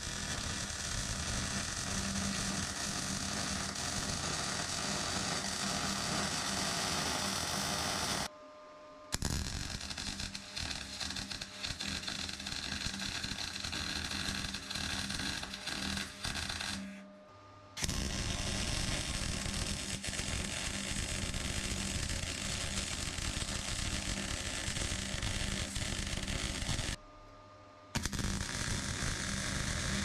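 Electric arc welding on steel: the arc gives a steady crackling hiss, broken by three short stops, about eight seconds in, about seventeen seconds in, and about twenty-seven seconds in, as the weld is paused and restarted.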